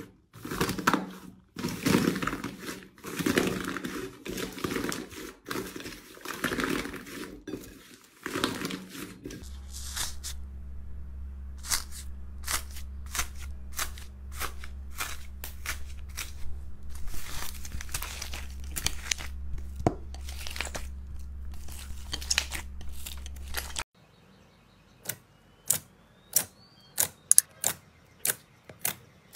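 Slime handled in three kinds in turn. First the dried crisp skin of an 'iceberg' slime cracks and crinkles densely as fingers break through it. Then pink foam-bead slime gives separate sharp crackles over a steady low hum, and near the end glossy blue slime pressed flat gives a quick run of sharp pops.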